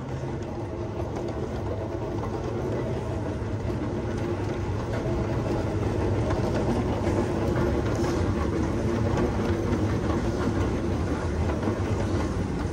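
Airport moving walkway running: a steady low rumble with a hum from its machinery and belt, with a light rattle, growing slowly louder.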